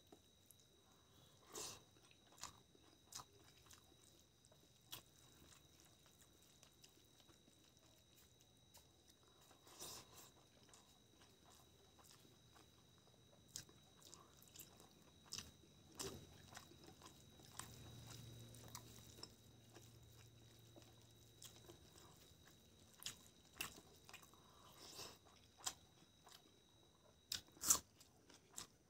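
Faint close-miked eating: a person chewing hand-fed mouthfuls of rice and chicken curry, with scattered short mouth clicks and smacks, the loudest near the end.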